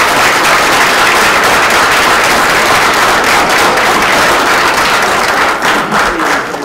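Applause from a small audience: dense, loud clapping that thins out near the end.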